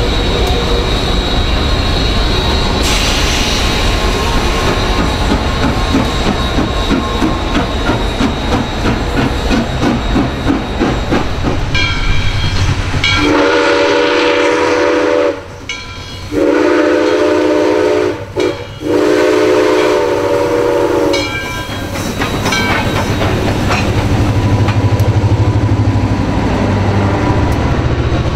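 Southern Railway 630, a 2-8-0 steam locomotive, is heard working with a heavy rumble and hiss. About halfway through, its multi-chime steam whistle blows long, long, short, long, the grade-crossing signal. The rumble of the passing train follows.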